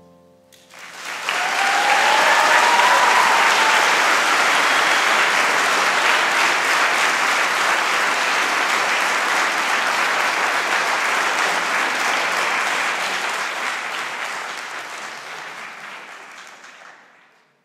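Audience applauding at the close of a sung performance. The clapping starts about half a second in, swells quickly, holds steady, then dies away near the end.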